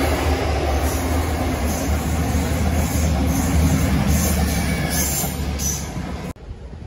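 EMR Class 222 Meridian diesel multiple unit running through the station: a steady low rumble of its underfloor engines and wheels with a regular clatter of bogies over the rail joints. The noise cuts off suddenly near the end, leaving only faint wind.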